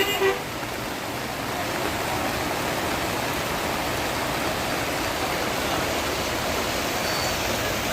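Steady rushing of water, an even hiss with no rhythm, from rain and runoff in a flooded street. A vehicle horn sounds briefly at the very start.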